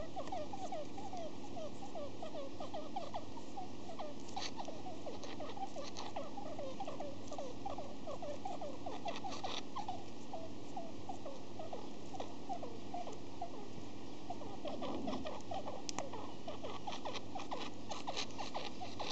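Budgie making a fast run of short, soft squeaks, with scattered clicks in between. The owner puts these weird sounds down to the bird having the sniffles.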